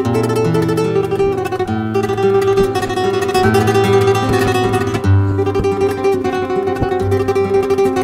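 Background music: plucked guitar over a low bass line that changes note every second or so.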